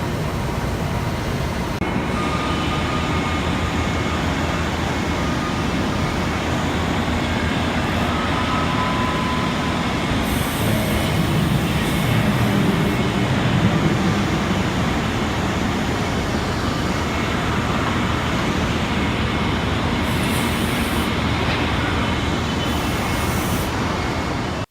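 Okuma MB-8000H horizontal machining center running: a dense, steady mechanical noise, with a few short high hisses along the way.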